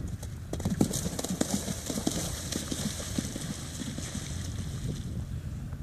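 Hoofbeats of a cantering horse, with a splashing hiss as it gallops through a shallow water jump that dies away after about five seconds.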